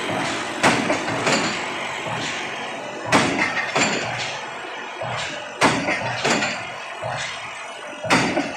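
Pile hammer driving a precast spun concrete pile: four heavy blows about two and a half seconds apart, each followed by a lighter knock about half a second later, with the rig's engine running steadily underneath.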